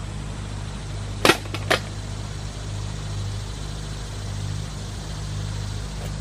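Two sharp clicks about half a second apart, a little over a second in, over a steady low mechanical hum.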